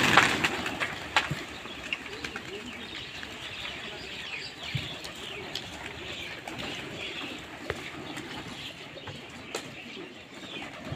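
A flock of feral pigeons flapping their wings as they take off, loudest right at the start, then quieter fluttering and shuffling as they settle to feed, with faint chirps of small birds.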